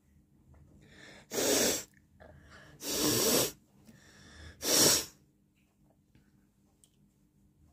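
Three forceful blasts of air out through a person's nose, each about half a second long and roughly a second and a half apart.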